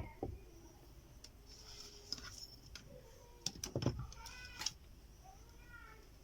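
A cat meowing several times in short, bending calls, with a few sharp clicks and knocks in the middle.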